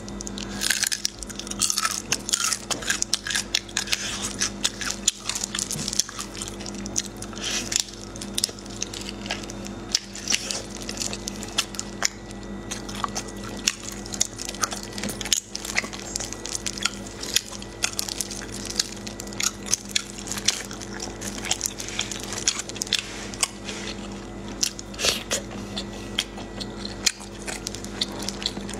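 Close-up eating sounds from someone eating sauce-braised snails in their shells: chewing and biting, with many sharp clicks and crackles as the snails are handled with plastic gloves.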